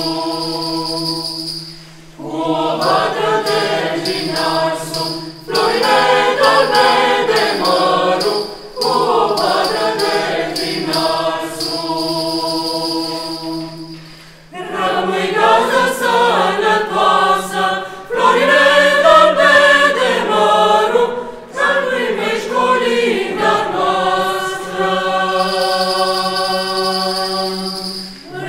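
Mixed church choir singing a Romanian Christmas carol (colind) without instruments, in phrases a few seconds long over a steady low held note.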